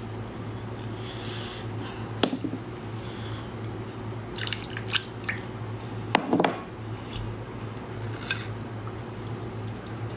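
Wet squelching and dripping as hands squeeze and tear apart a slimy, translucent piece of seafood, with a few sharper wet smacks scattered through, over a steady low hum.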